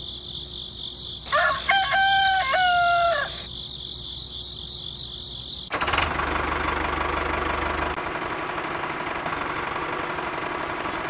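A rooster crows once, about two seconds long, over a steady high-pitched ringing. About halfway through, a small motor starts abruptly and runs steadily: the little electric motor of a toy tractor driving along.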